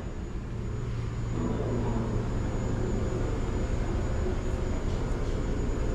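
Steady low rumble of city background noise.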